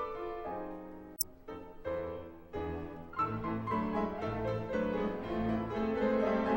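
Classical-style instrumental background music led by piano. The music briefly drops away about a second in, with one short click.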